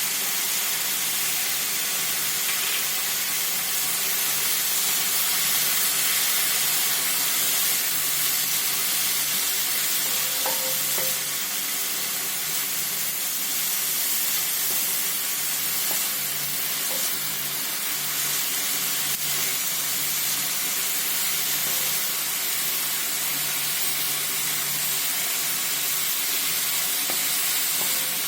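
Chopped onions sizzling steadily in hot oil on a tawa as they fry toward golden brown, stirred now and then.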